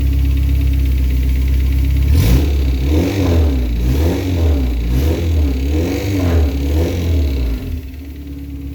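Honda K24 inline-four engine idling, then revved up and down repeatedly, about once a second, for several seconds before settling back to idle near the end. The owner suspects timing chain noise from this engine even with a replaced tensioner.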